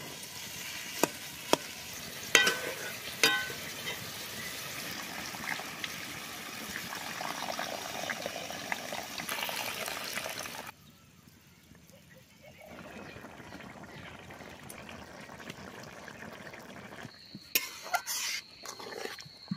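Periwinkle and papaya curry sizzling in a metal kadai, with a metal spatula stirring and scraping it and knocking against the pan several times. Water is poured in about ten seconds in. The sizzle then cuts off suddenly to a quieter simmer, and metal clinks sound near the end.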